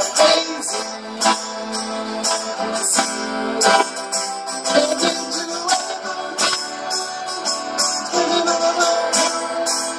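Twelve-string acoustic-electric guitar strummed in a steady rhythm, amplified through a battery-powered Bluetooth speaker with a 6-inch woofer.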